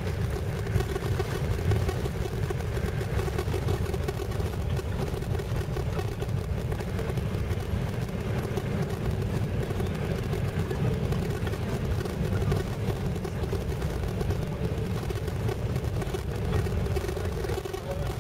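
Steady low engine and tyre rumble heard from inside the cabin of a vehicle driving on an unpaved gravel road.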